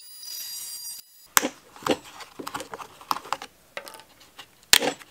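Oscillating multi-tool running with a high, steady whine as it cuts the strengthening ribs of a plastic ammo box lid, stopping about a second in. Then come a string of sharp clicks and taps as hands handle the hard plastic lid.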